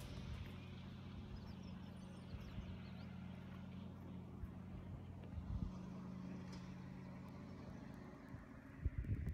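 Steady low engine hum from an idling motor, with faint bird chirps above it and a few low bumps near the end.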